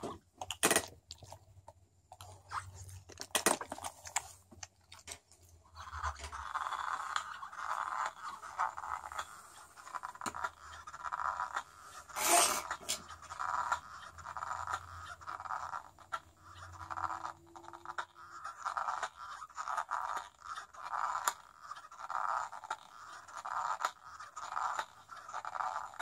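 Boston terrier chewing and gnawing a small black rubber ball toy, teeth scraping and rubbing on the rubber. The rubbing comes in quick repeated pulses from about six seconds in, with a few sharp clicks along the way.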